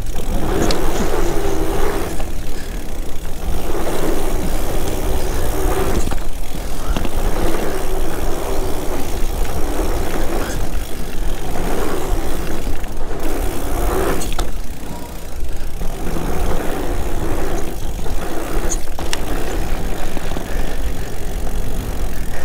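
Mountain bike ridden fast over a wooden bridge and dirt singletrack: steady wind rush over the camera microphone with the rumble of knobby tyres on the trail, in uneven surges, and a few sharp rattles from the bike.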